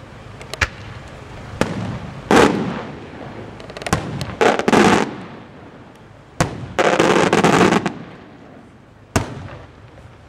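Aerial firework shells bursting: sharp bangs come every second or so, each trailing off in an echo. Around the middle there is a quick cluster of bursts, and from about seven to eight seconds in there is a longer, continuous rush of noise.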